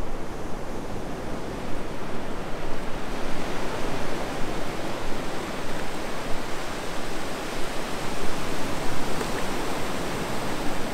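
Ocean surf breaking and washing up a sandy beach: a steady rush of waves that swells and eases.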